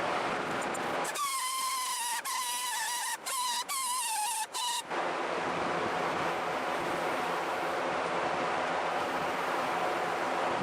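Angle grinder cutting metal: a steady hiss, with a high, wavering whine from about a second in that drops out briefly a few times and stops abruptly about five seconds in.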